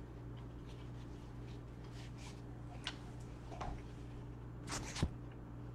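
Paper being unfolded and handled, giving faint rustles and a few small clicks; the loudest crinkle comes near the end.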